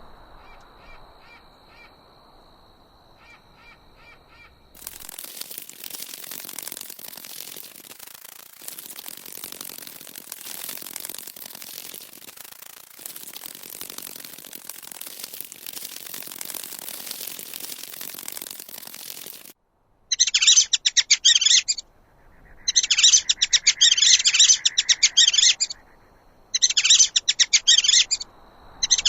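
Bird calls: a faint steady high tone with small chirps, then a steady hiss for about fifteen seconds, then loud bursts of very rapid high-pitched trilling, each lasting a couple of seconds, repeated four times.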